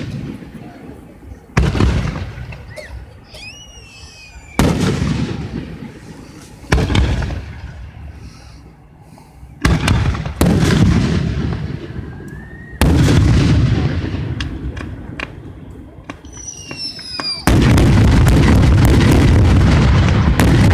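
Fireworks shells bursting: a string of about seven heavy booms, each dying away over a second or two. From about three-quarters of the way through comes a continuous loud barrage. Short high whistling glides sound between some of the booms.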